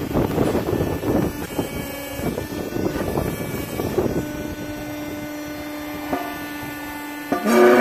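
Electric motor and hydraulic pump of a Brokk 60 compact electric excavator running with a steady hum, with irregular hydraulic surges as the arm and bucket move in the first few seconds. A louder, higher whine starts just before the end as the hydraulics take up load again.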